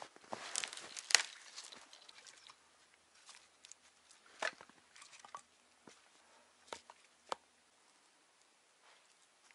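Boots crunching through snow, with dry twigs snapping underfoot, for about the first two seconds. After that come only a few scattered sharp snaps and clicks.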